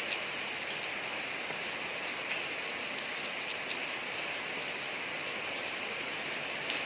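Steady rain falling on a street: an even hiss of rain with scattered individual drop ticks.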